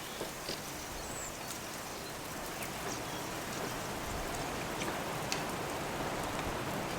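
Light wet precipitation falling outdoors: a steady even hiss with scattered small ticks of drops landing on surfaces.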